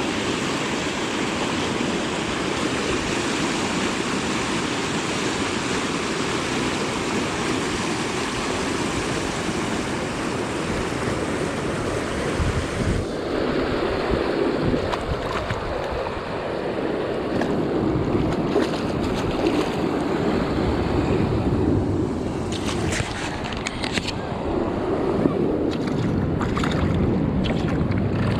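Rushing river water with wind buffeting the microphone. About halfway through the sound changes abruptly to a lower, unsteady rumble, with scattered clicks near the end.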